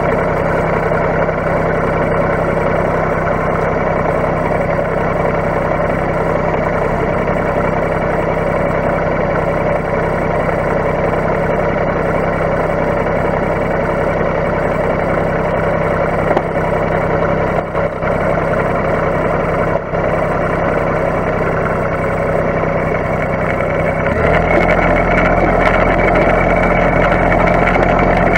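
Compact tractor's engine running steadily, then throttled up and louder near the end as the tractor pulls away.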